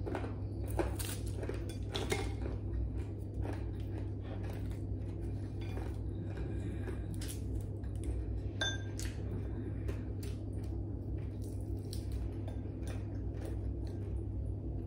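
Light clicks, taps and scrapes of fingers and brittle dried fish on a ceramic plate, with one clearer ringing clink about eight and a half seconds in, over a steady low hum.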